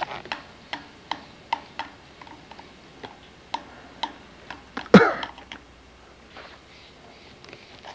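A string of short sharp clicks or taps, irregular at about two to three a second, ending in one louder thump about five seconds in.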